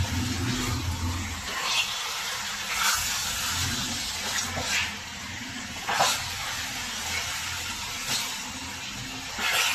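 Raw chicken pieces sizzling in hot oil in a pan, a steady hiss, while a slotted spatula stirs them, scraping and knocking against the pan every second or two.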